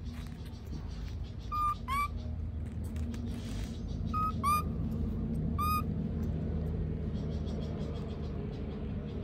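Five short, whistle-like animal calls, mostly in close pairs, each a brief high note with a hooked ending, over a steady low hum.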